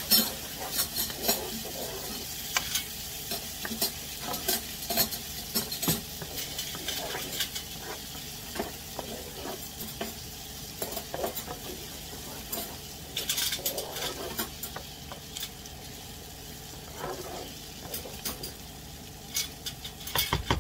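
Chopped onion sizzling in vegan butter in a nonstick frying pan, stirred with a wooden spoon that scrapes and taps irregularly against the pan.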